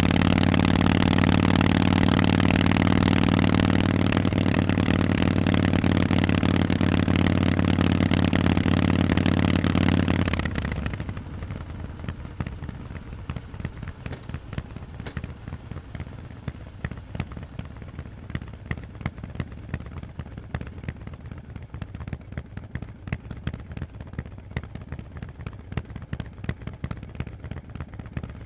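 Harley-Davidson Forty-Eight's 1200 cc air-cooled V-twin, through loud Vance & Hines exhausts, running at a steady speed. About ten seconds in the engine sound falls away sharply, leaving a much quieter, irregular ticking and clatter.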